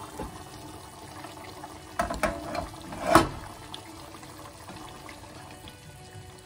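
Meat and sauce simmering in a pressure-cooker pot with the lid off, a steady bubbling hiss. A few knocks about two seconds in and a loud clunk about three seconds in as the steel lid is handled and set down.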